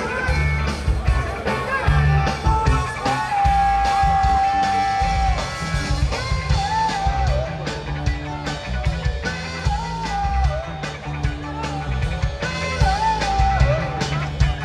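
Rock music with guitar, bass and a steady beat, and a voice holding long wavering notes.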